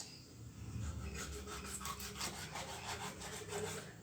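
Knife sawing through fish to cut it into slices: a quick run of rasping back-and-forth strokes, about three or four a second, starting about a second in.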